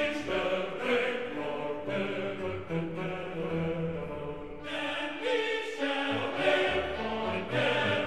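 Background music with sustained choir-like voices.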